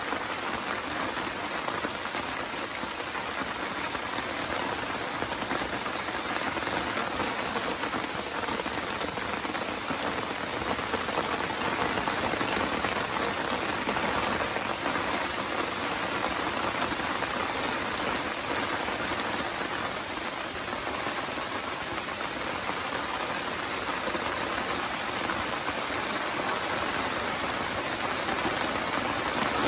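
Steady rain falling, a dense, even patter with no thunder or single loud drops standing out.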